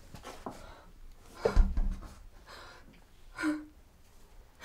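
Gasping breaths and a short, sighing sob, with a dull thump about a second and a half in.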